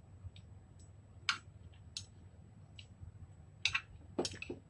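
Stainless steel chopsticks tapping and clicking against a ceramic bowl while picking up the last noodles, about half a dozen light, irregular clicks.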